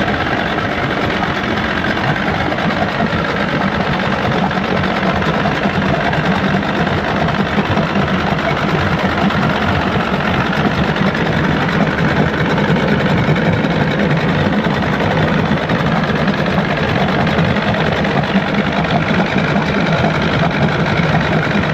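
Outboard motor running steadily and loudly, an even mechanical drone with no change in speed. It is an outboard that was hard to get started, now kept running.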